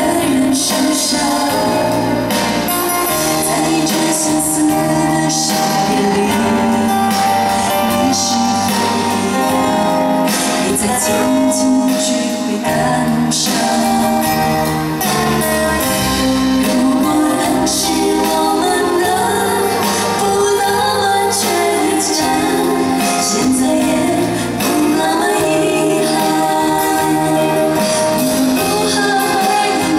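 Live band music with a woman singing lead through a microphone, the band and voice carrying on steadily.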